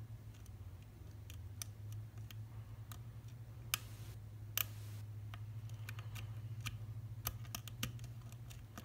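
Small metallic clicks and ticks from a lock pick working the pin stacks of an Abus C73 padlock, coming irregularly, with two sharper clicks around the middle. A low steady hum runs underneath.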